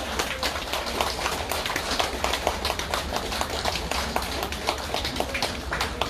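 Audience applauding, a dense, irregular clatter of many hands clapping that keeps up evenly.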